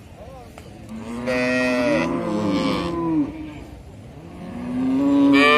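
Cow mooing twice: a long moo about a second in that lasts about two seconds, and a second, rising moo starting near the end.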